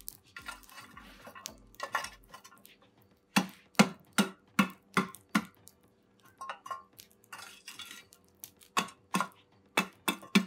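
Metal scoop scraping through lumps of burning charcoal and knocking against them and the steel tray of a long kebab grill while spreading the coals: scraping, then a quick run of about six sharp clinking knocks, more scraping, and another run of knocks near the end.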